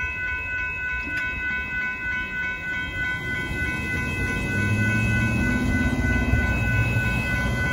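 Railroad grade-crossing warning bell ringing on and on in quick, even strokes while the gates stay down. A car's engine and tyres rise about halfway through as it drives past, then fade near the end.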